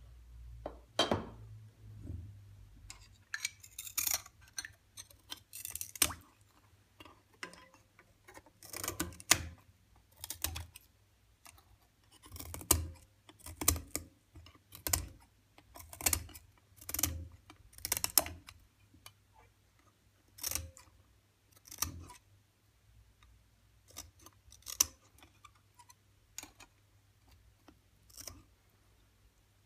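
Scissors cutting a sheet of blue stained glass held under water: irregular crisp snips and crunches, about one every second or two, as small bits of glass break away in the water.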